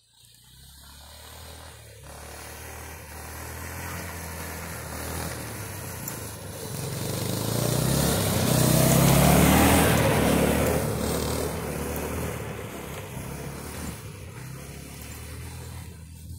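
Arctic Cat ZR 120 youth snowmobile's small engine running, growing steadily louder as it approaches, loudest about nine to ten seconds in as it passes close, then fading as it rides away.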